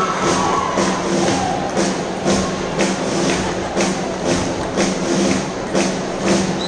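Live march music for a marcha popular, with held band notes over a steady percussive beat about twice a second.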